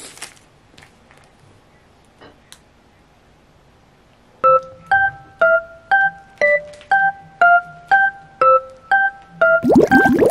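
Faint scattered clicks, then from about four seconds in a simple melody of single keyboard notes, about two a second, each plucked and quickly fading, ending in a quick flurry of gliding notes.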